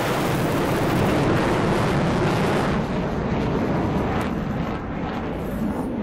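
Jet noise of a fighter aircraft flying past overhead, a steady rushing rumble that eases a little about three seconds in.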